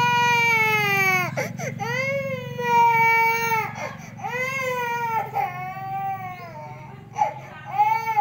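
A toddler girl crying hard: about five long, drawn-out wails, each broken off by a quick gasp for breath, over a steady low hum.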